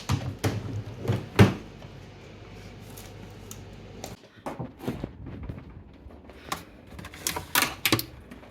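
Scattered knocks and clicks of things being handled, like doors or cupboards opening and closing, over a low steady hum that stops about four seconds in.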